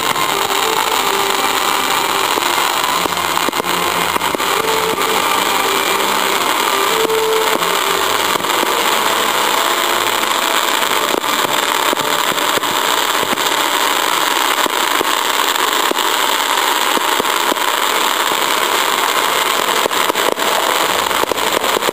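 Fireworks display: a dense, steady crackle of many small pops from crackling-star shells, with no single big bang standing out.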